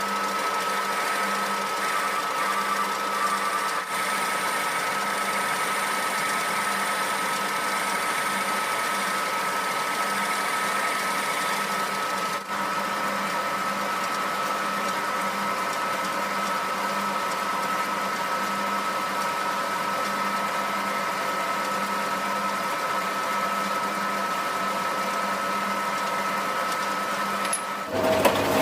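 Homemade metal lathe running steadily, its motor and drive giving an even whine. The sound changes abruptly near the end.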